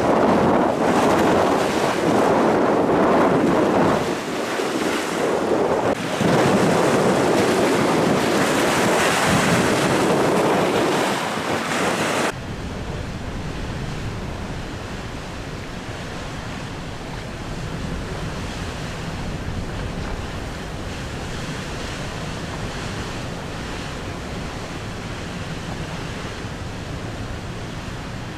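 Strong gusting wind buffeting the microphone over choppy, wind-driven lake waves. About twelve seconds in, the sound cuts abruptly to a quieter, steadier rush of waves breaking against the shore under the wind.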